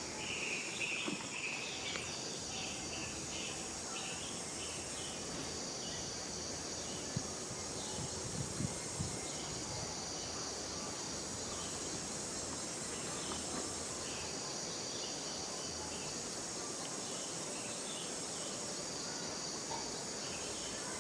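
Steady high-pitched insect chorus, with scattered short chirps in the first few seconds and a few soft knocks about eight seconds in.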